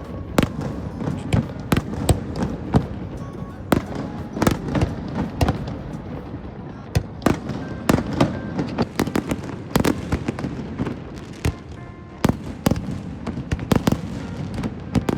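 A rapid, irregular series of sharp clicks and knocks, several a second, over a steady background hum.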